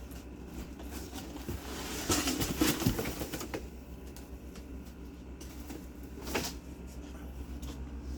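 Handling noises from unpacking a PC case: rustling and light knocks, densest about two to three and a half seconds in, with one sharp click a little after six seconds, over a steady low hum.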